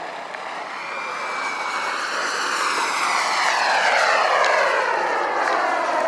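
Radio-controlled model aircraft flying past, its engine sound growing to its loudest about four seconds in and then dropping in pitch as it passes and moves away.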